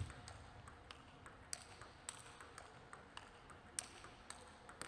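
Table tennis ball bouncing: faint, sharp clicks at an uneven pace, roughly two a second.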